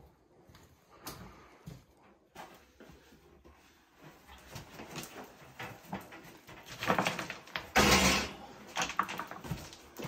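Knocks and scraping as the metal frame of a portable generator is heaved up against rock, with footsteps on loose stones. The knocks come thicker after about four seconds, and there is a loud scrape about eight seconds in.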